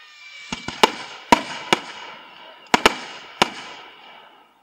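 Fireworks display: about eight sharp bangs of bursting shells at uneven intervals, some in quick pairs, over a continuous hiss and crackle of burning effects.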